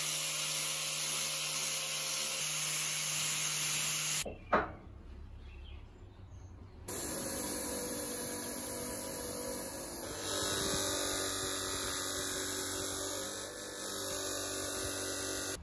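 An angle grinder with a sanding disc runs steadily against the steel scale beam. A sharp knock follows about four and a half seconds in. From about seven seconds in, a bench grinder runs steadily while the brass weight is pressed against its wheel for buffing.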